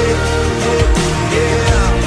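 Pop song playing: a held melodic line over bass and a steady drum beat, with no words sung.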